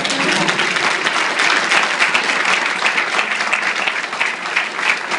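Audience applauding: many hands clapping together in a dense, loud, steady patter.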